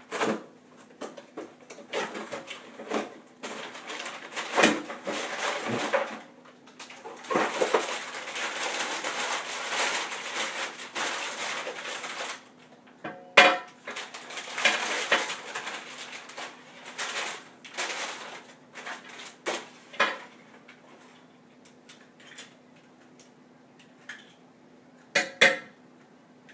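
Packaging being unwrapped: a cardboard box opened and paper wrapping crinkled and pulled off, in long rustling stretches, broken by sharp clinks and knocks as chrome metal drum-stand parts are handled and set down. A faint steady hum runs underneath.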